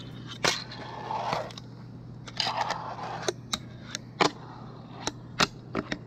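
Fingerboard being ridden and flipped on a wooden box and ramp: a dozen or so sharp clacks of the tail popping and the wheels landing, with a few short scrapes of the wheels rolling and the board sliding.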